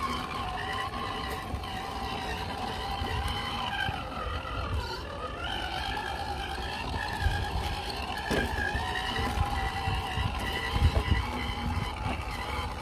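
Element RC Enduro scale crawler's Hobbywing Fusion brushless motor and geared drivetrain whining as it crawls, the pitch rising and falling with the throttle.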